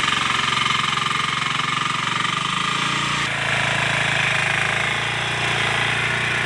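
Walk-behind power tiller engine running steadily with a rapid knocking beat while its rotary tines work through loose soil.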